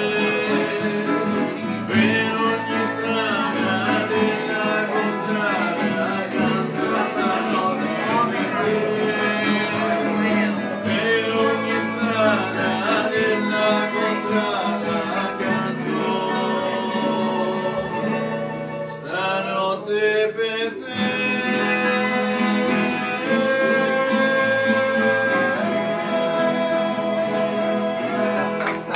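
Men singing an Italian song together to a strummed mandolin and guitar, with a short break in the playing about two-thirds of the way through.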